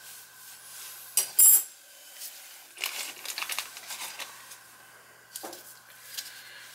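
Metal spanner-flange repair ring set down onto a tiled floor with a sharp metallic clatter about a second in, followed by lighter metal clinks and rattles as more repair pieces are handled.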